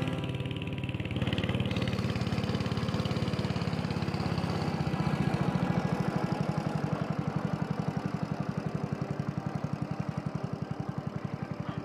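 Small wooden river boat's engine running as the boat pulls away, a steady fast chugging that swells about a second in and fades a little near the end.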